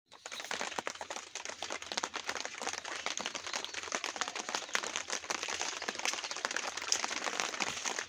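Very heavy rain falling: a dense, even crackle of many drops.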